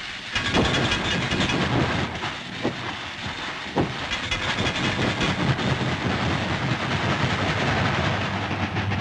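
Cartoon sound effects of a steam locomotive running at speed: a rapid, unbroken clatter of chuffs and rail clicks mixed with hissing steam, with a few louder knocks.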